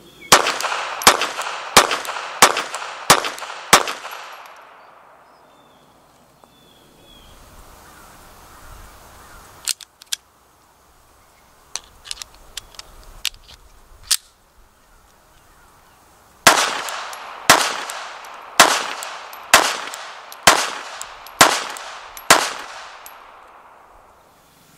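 Mauser Model 1914 pistol in .32 ACP fired in two strings: six shots about two-thirds of a second apart, then after a pause with a few faint sharp clicks, seven more shots about a second apart.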